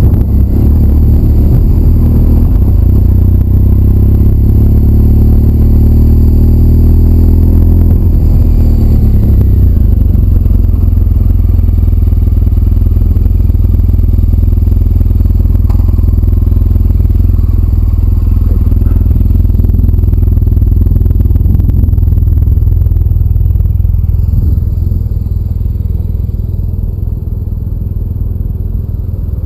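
Motorcycle engine running as the bike rides off: its note rises for several seconds, drops about eight seconds in, then settles to a steady low run. It eases off and gets quieter near the end.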